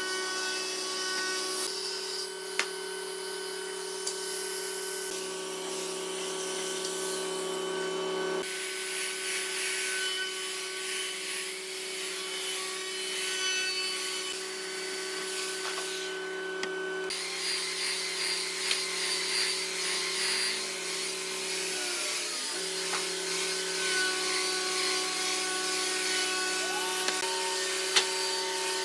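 Power sanding of a wooden handrail blank: an angle grinder with a sanding disc running against the wood, then, after a cut about a third of the way in, a handheld electric belt sander running along the rail with a steady motor whine.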